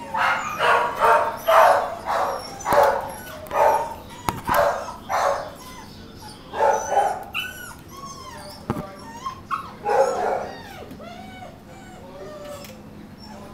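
Dogs barking in quick repeated barks, about two a second, through the first half. Then comes high-pitched puppy whining and yipping, with one more short burst of barks about two-thirds of the way in.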